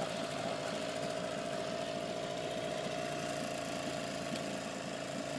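Old Evinrude 4-horsepower two-stroke outboard motor idling steadily, its fast, even firing unchanged throughout.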